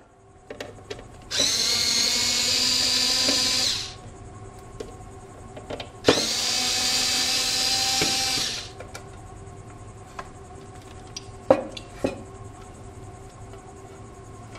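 Cordless electric screwdriver backing screws out of a power supply's sheet-metal cover: its motor runs steadily twice, about two and a half seconds each time. A few sharp clicks of hardware being handled follow later.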